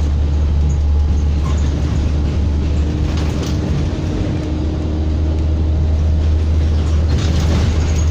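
Bus engine heard from inside the moving bus: a steady low drone with a faint steady whine above it and occasional small rattles.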